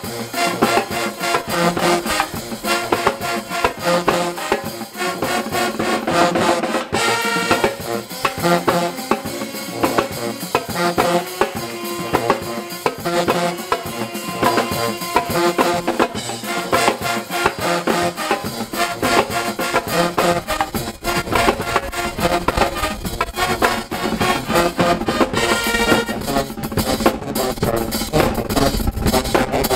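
College pep band playing an upbeat tune: sousaphones, trumpets and saxophones over a drum kit and marching tenor drums, with a steady driving beat. From about twenty seconds in the low drums come forward.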